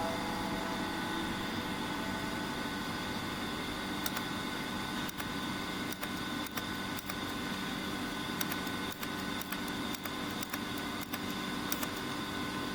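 Steady electrical hum with several constant tones from the running ESD test setup. From about four seconds in, short sharp ticks come at irregular intervals, several a second at times.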